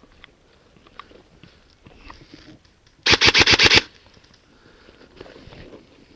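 Airsoft gun firing one short full-auto burst of about eight rapid shots, about three seconds in.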